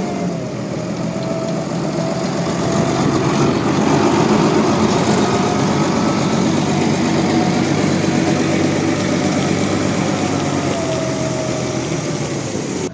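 Bulldozer engine running steadily, with a faint whine that drifts up and down in pitch.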